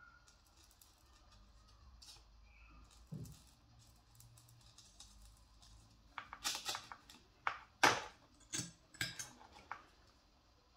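A cluster of sharp clicks and light scrapes over about four seconds in the second half, loudest near the middle of it, from a corded pen tool and a dried gourd being handled against each other. Before that there is only faint room noise.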